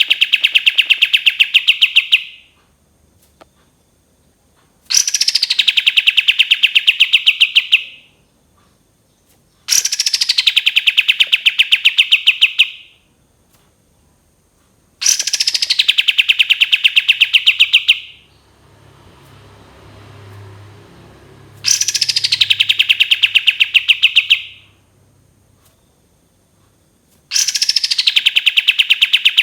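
Olive-winged bulbul (kapas tembak) singing its long 'tembakan' phrase. Each phrase opens with a high falling whistle and runs into a fast, even rattling trill of about 3 seconds. Six nearly identical phrases come about every five to six seconds.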